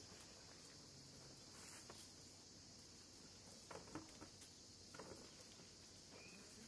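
Near silence, with a faint, steady high-pitched insect chorus and a few soft clicks in the middle.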